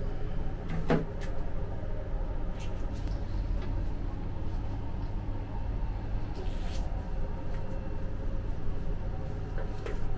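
Kitchen room sound: a steady low hum with a few scattered knocks and clinks of handling, the loudest about a second in.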